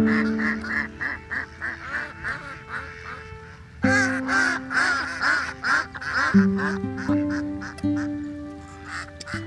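Ducks quacking in quick runs of short calls, several a second, busiest about four seconds in, over background music of long held low notes.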